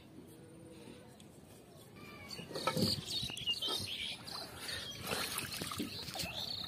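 Water splashing and sloshing around a person's legs as he wades through shallow water, a run of irregular splashes starting about two seconds in.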